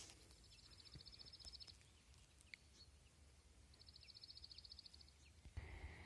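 A small bird singing a fast, high, quiet trill twice, each about a second and a half long, with a few faint short chirps in between. A low steady rumble sets in near the end.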